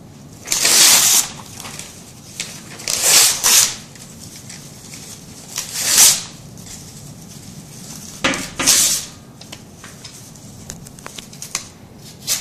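Sheets of paper being torn in about six short rips, some in quick pairs, with light rustles and clicks between them near the end.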